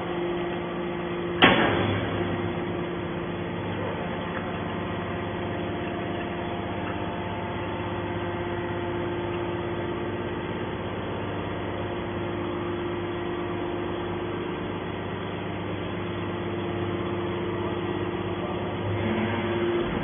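Hydraulic scrap metal baler running with a steady hum while its ram pushes a compressed bale of scrap out of the press. A single sharp metal clank about a second and a half in.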